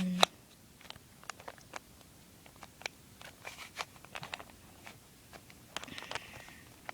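Rubik's Cube being turned by hand: irregular plastic clicks and clacks of its layers snapping round, a few a second, coming in quicker flurries about halfway through and again near the end.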